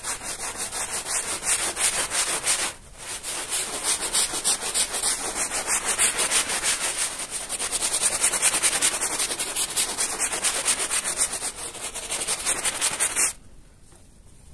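Handheld scrub brush scrubbing a wet, soapy carpet in quick repeated back-and-forth strokes, with a brief pause about three seconds in. The scrubbing stops suddenly near the end.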